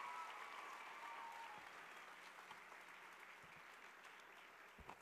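Audience applauding, loudest at the start and gradually dying down.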